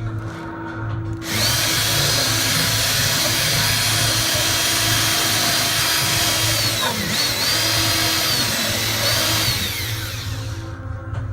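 Power drill running under load while drilling screw holes, for about nine seconds starting a second in. Its whine dips briefly past the middle as the bit bogs, recovers, and winds down near the end.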